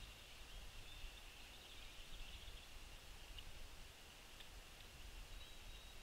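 Faint outdoor ambience: distant birds chirping, thin and high, over a low steady rumble.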